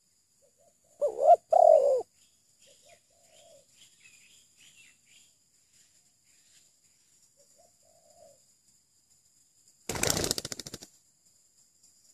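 Spotted doves cooing, with two loud coos about a second in and fainter coos later, and small birds chirping faintly. About ten seconds in, a burst of rapid wing-flapping lasts about a second.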